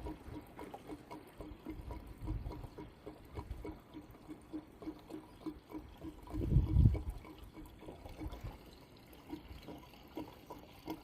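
Gasoline being poured from a gas can into a lawn mower's fuel tank, with a run of small glugs several times a second. Two low bumps break in, the louder one a little past the middle.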